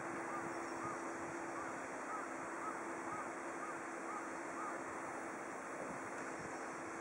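Steady rushing wind noise with the low, even hum of a distant diesel railcar engine. A bird repeats short chirps, about two a second, which stop a little before five seconds in.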